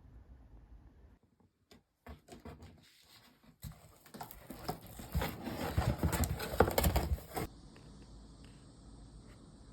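Rustling and small clicking, clattering handling sounds, busiest from about four to seven and a half seconds in, then a faint steady hiss.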